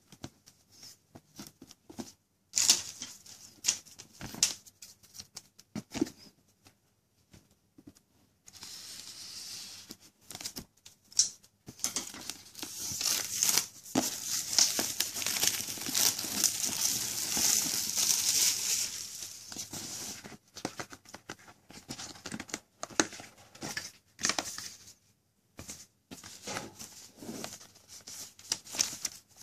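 Clear plastic shrink-wrap being torn and peeled off a cardboard box, crinkling densely for several seconds around the middle. Before and after it come scattered taps and rustles from the box being handled.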